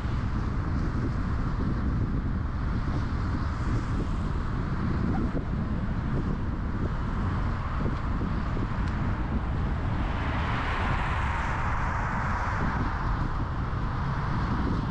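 Car driving: a steady low road and engine rumble with tyre hiss. A louder hiss swells for a few seconds about two-thirds of the way through, then fades.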